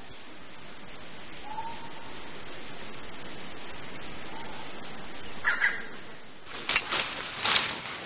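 Steady forest insect chorus with a high thin trill, with a couple of faint short bird calls. It gives way to rustling and crackling noises in the last second and a half.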